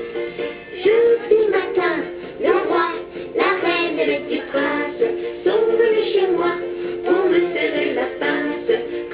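Music: a ukulele playing, with a singing voice over it.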